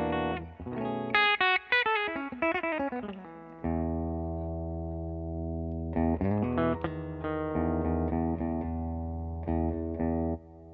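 Clean electric guitar played through a Universal Audio UAFX 1176 Studio Compressor pedal: a fast descending run of notes, a chord held and sustaining evenly, then more picked notes and chords. The compression is smooth.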